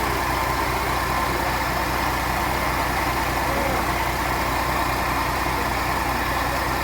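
Weichai WP12 inline-six diesel engine idling steadily, freshly overhauled.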